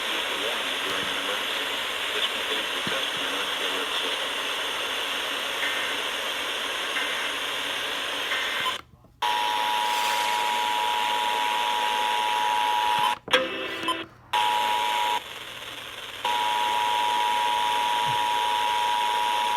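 Hissy radio static with three faint short data bursts, typical of an EAS SAME header, then, after a brief dropout, the Emergency Alert System attention signal: a steady two-tone 853 and 960 Hz alert, broken by two short gaps.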